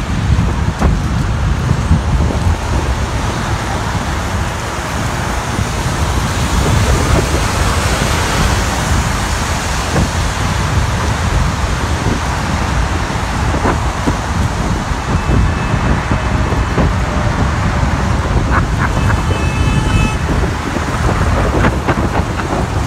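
Floodwater rushing steadily over a road, with gusts of wind buffeting the microphone.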